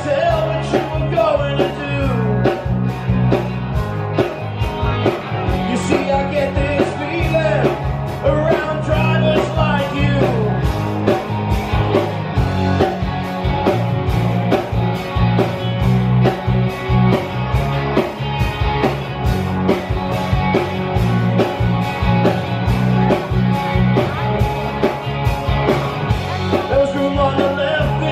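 Live rock band playing an original song: two electric guitars, bass guitar and a drum kit keeping a steady beat, with a male lead vocal.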